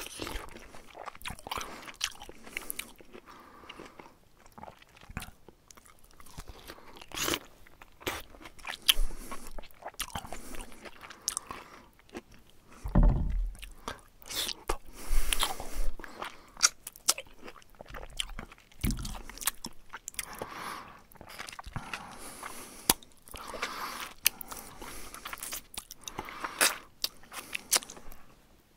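Syrian hamster chewing a mealworm held in its paws: quick, irregular crisp crunches and small bites, close up. A few louder dull bumps come near the middle.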